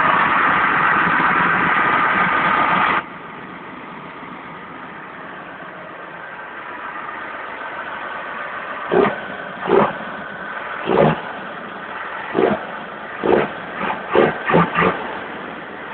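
Case IH MXU 115 tractor engine running at high revs, then dropping abruptly to a lower, steady run about three seconds in. From about nine seconds in there is a series of about nine short, loud bursts.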